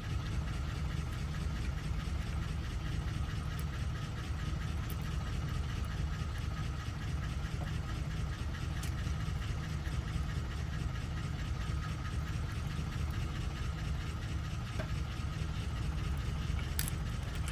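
Steady low hum of an idling engine, with a few faint small clicks of lock parts being handled.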